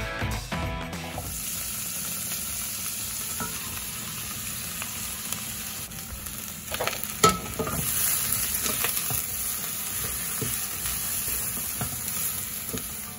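Celery, carrots, onion and shrimp shells sizzling steadily in olive oil in a stainless steel stock pot, with the scrapes of a wooden spatula stirring them; the sizzle sets in about a second in, and a sharp knock about seven seconds in is the loudest sound. This is the sauté stage of a shrimp stock, before any water goes in.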